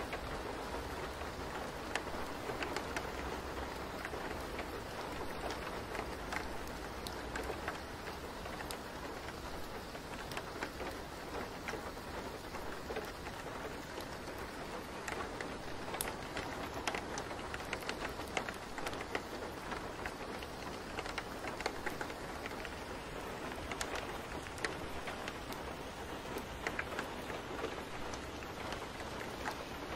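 Steady rain: an even hiss with scattered sharp drop ticks.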